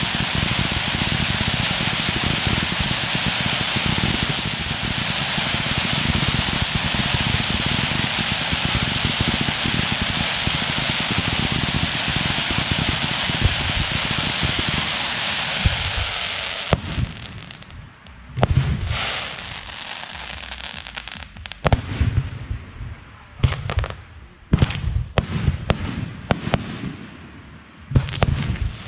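Fireworks going off: a dense, unbroken barrage of bangs and crackle for about the first seventeen seconds, which then breaks off into separate sharp bangs every second or two.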